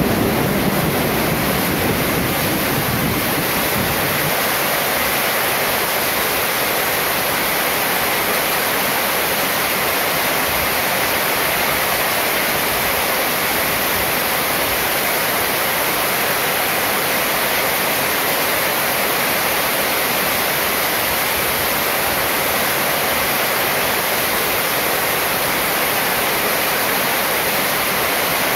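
Heavy rain falling steadily on a ribbed metal roof and pouring off its edge, a dense, even hiss. A low rumble under it fades out within the first few seconds.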